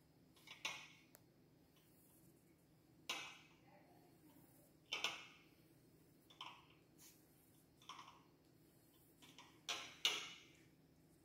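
Pencil scratching on paper in short separate strokes, one every second or two, with two louder strokes close together near the end.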